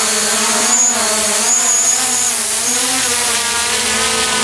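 DJI Mavic Pro quadcopter on its standard propellers, its motors and propellers giving a steady buzzing hum as it lifts off from a hover; the pitch wavers slightly up and down as the motors adjust.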